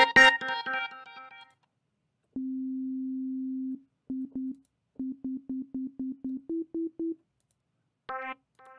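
Arturia Pigments software synthesizer played through its arpeggiator. First a fast run of bright, buzzy repeated notes fades out, then after a pause a single held tone sounds. Then short staccato notes, about four a second, repeat on one pitch and step up to a higher note near the end.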